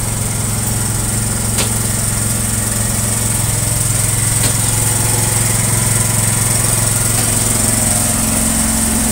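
A small engine runs steadily with an even hum, a few light clicks standing out over it.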